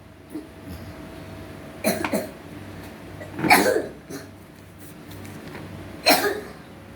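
A young boy coughing in three short bouts, about two, three and a half and six seconds in, the first a quick double cough. The doctor takes it for an allergic cough that comes on with changes of weather.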